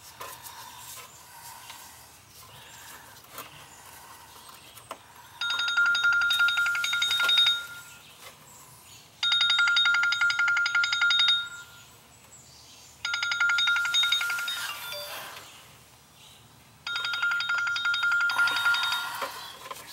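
A telephone ringing: four rapidly pulsing rings, each about two seconds long, with roughly two-second gaps between them.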